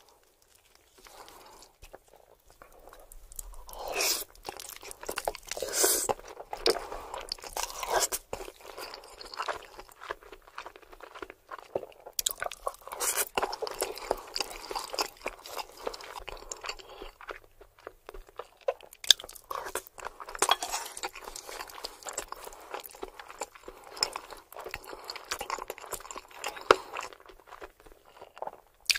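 Close-miked ASMR eating sounds of a mouthful of baked lasagna being chewed, with many small irregular clicks and smacks.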